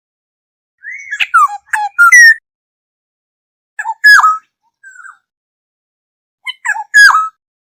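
Black-hooded oriole calling: three short, loud phrases of whistled notes, several sliding downward in pitch, separated by a second or two of silence.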